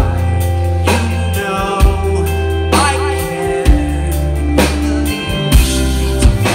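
Live rock band playing: electric guitars, bass guitar, drum kit and keyboard, with a male lead vocal singing over held bass notes that change about every second.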